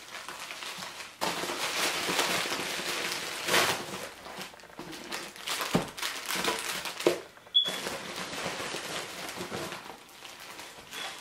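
Plastic bubble mailer and plastic packaging crinkling and rustling as they are handled and a boxed camera is pulled out, with a couple of sharp knocks around the middle.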